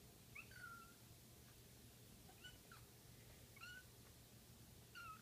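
Tabby kitten giving faint, tiny squeaky meows: about four short high-pitched calls, the first the longest and falling in pitch.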